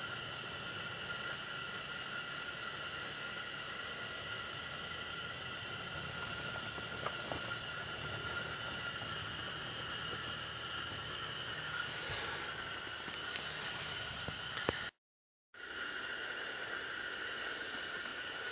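Steady hiss with a few faint, steady high tones running through it and a couple of faint ticks. It drops out to silence for about half a second near the end.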